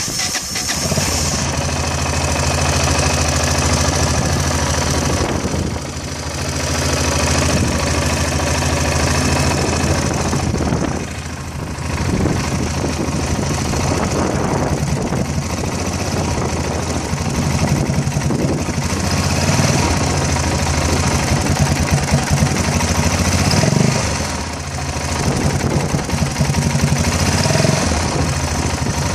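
Yamaha XT660's single-cylinder four-stroke engine running at raised revs, easing back briefly three times. The engine has a misfire, which was traced to the manifold absolute pressure sensor.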